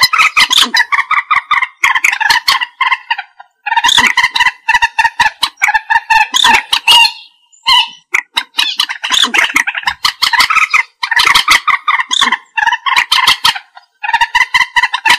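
Common moorhen calling: repeated bouts of rapid call notes, each bout two to three seconds long, with short pauses between.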